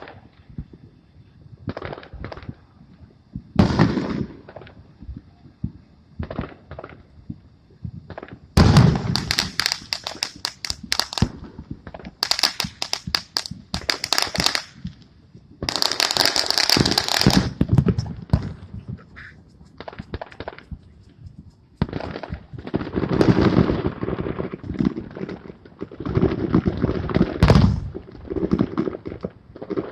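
Fireworks going off: rapid runs of sharp bangs and crackling in several dense stretches, with scattered single pops in the short lulls between.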